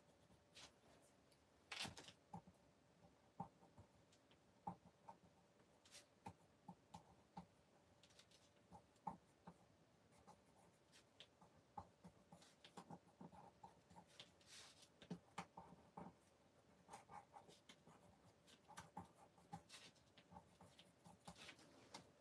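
Faint scratching and tapping of a drawing pencil on paper in short, irregular strokes while dark areas are shaded in.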